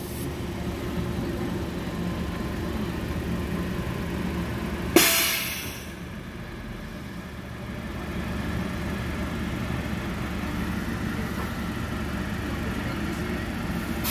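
Neoplan AN440LF-ETB trolley bus moving through its yard with a steady electric hum. About five seconds in comes a short, sharp hiss of released air from its pneumatic brake system, fading over about a second.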